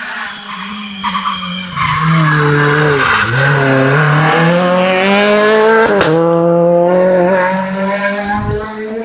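Peugeot 208 rally car's engine taking a tight bend at speed: the pitch drops as it slows into the corner about three seconds in, then climbs hard under full acceleration. A sharp crack comes about six seconds in, and the engine climbs once more before easing off as the car pulls away.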